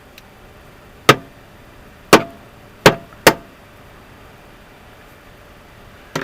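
Four sharp knocks of hard objects striking, each with a short metallic ring: one about a second in, then three close together, with a smaller knock near the end.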